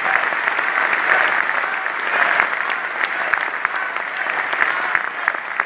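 Large audience applauding steadily in a big hall, many hands clapping at once.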